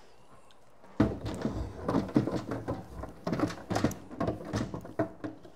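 Plastic refrigerator crisper drawer being handled and wiped out, giving a quick run of knocks and rattles that starts about a second in.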